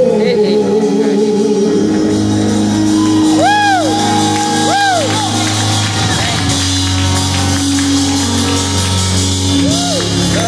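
Live gospel worship music: held chords under a man's voice shouting and singing into a microphone, with a few high arching cries near the middle, and the congregation clapping.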